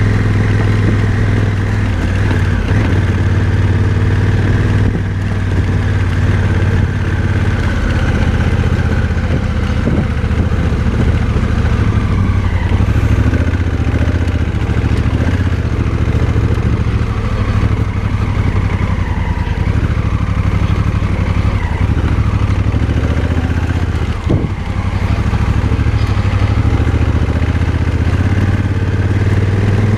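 Motorcycle engine running steadily at low, even revs while riding a rough dirt road, with scattered light knocks and clatter. There is a sharper knock with a brief dip in the engine sound about 24 seconds in.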